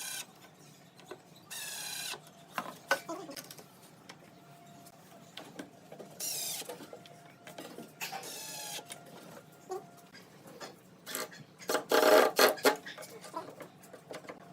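Short bursts of a small power tool's electric motor whining as it spins up and down, several times, with clicks and knocks of work on wood between them and a louder burst about twelve seconds in.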